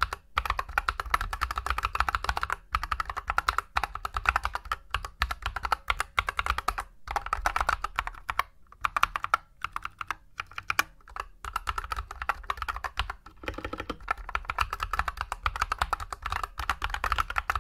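Fast typing on an Akko 3098 mechanical keyboard, dense runs of key clicks broken by a few short pauses.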